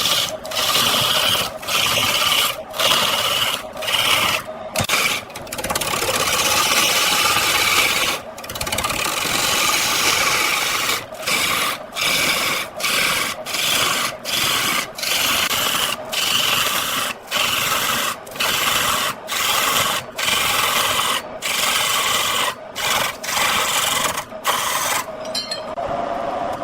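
Woodturning tool scraping a wooden workpiece spinning on a lathe, in repeated strokes that break off briefly between passes, later about one stroke a second.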